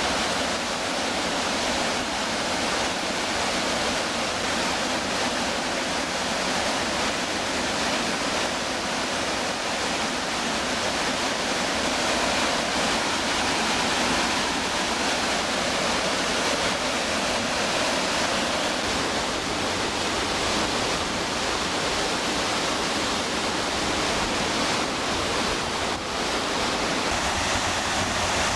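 White water of a rocky river rushing over rapids and small waterfalls, a steady even noise.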